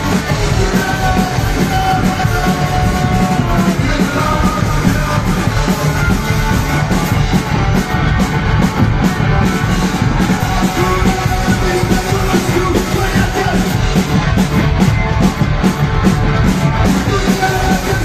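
A rock band playing live at full volume, with electric guitars over a steady beat.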